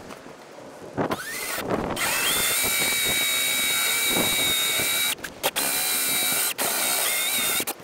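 Power drill with a hole saw cutting holes in a plywood boat deck: a short burst about a second in, then the drill runs steadily at a held pitch from about two seconds, cutting out briefly twice before stopping near the end.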